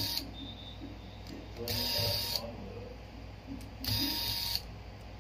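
Corded electric screwdriver running in short bursts as it backs out the small screws of a smartphone's midframe: two bursts, about two seconds apart, over a steady low hum.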